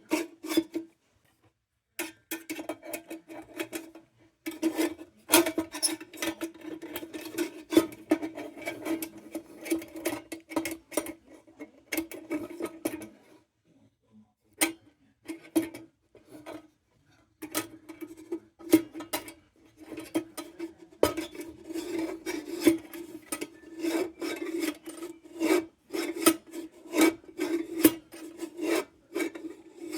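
Repeated rasping, scraping strokes of a hand tool working on the lantern's metal, in uneven runs with brief pauses about a second in and again around the middle.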